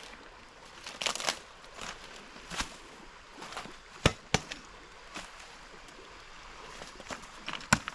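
Irregular sharp knocks on wood, with softer rustling and scraping between them. Two knocks come close together about four seconds in, and another comes near the end.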